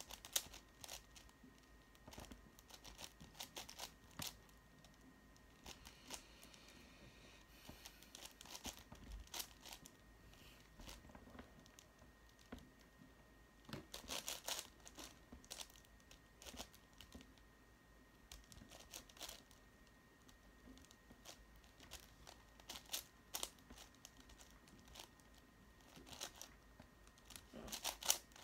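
A 5x5 Rubik's cube being turned by hand during edge pairing: faint, irregular clicking and clacking of the plastic layers in quick clusters, with denser flurries about halfway through and again near the end.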